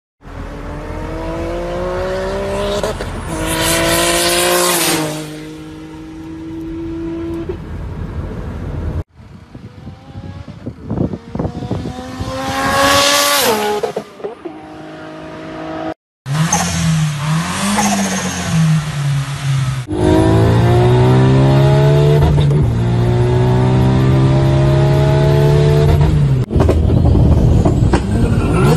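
A run of short clips of cars with modified loud exhausts, the audio cutting abruptly from one clip to the next. In several of them the engine pitch climbs, holds and drops as it is revved. About halfway through, a car speeds past on a highway, its note peaking as it goes by and dropping after. Near the end an engine is held at steady high revs.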